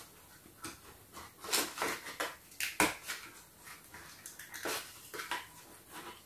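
Hands handling a toy box and small figures: scattered rustles and light clicks.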